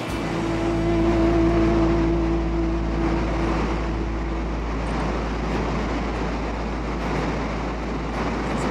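Steady roar of Niagara Falls, water pouring over the brink, with a deep low rumble. A steady hum sounds over it for the first four or so seconds, then fades out.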